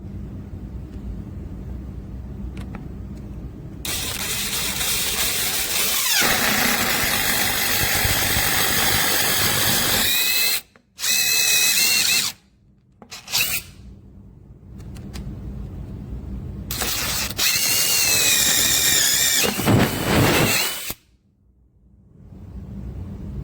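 Power drill spinning a 7/16 in. auger bit, boring into wood in several runs with a high whine. The runs are broken by short pauses and stop abruptly near the end.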